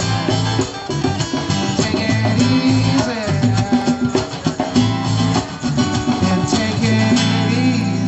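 Live band music: guitar over bass notes and drums.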